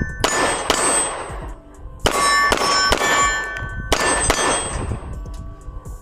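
A string of about seven shots from a Great Lakes Firearms Synergy DS 9 9mm 2011 pistol, fired in quick groups of two and three. Each shot is followed by a metallic ring that dies away, typical of hits on steel targets.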